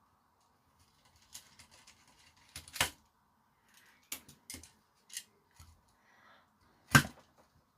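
Sharp clicks, taps and snaps of a small plastic handheld fan casing being handled and pried at while trying to get it apart, with two louder snaps about three seconds in and near the end.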